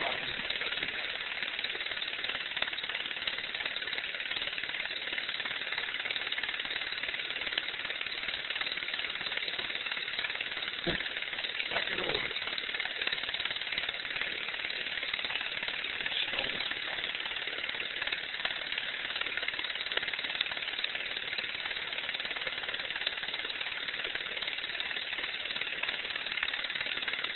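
8 mm film projector running: a steady whirring hiss with a light mechanical rattle and a few faint knocks around the middle.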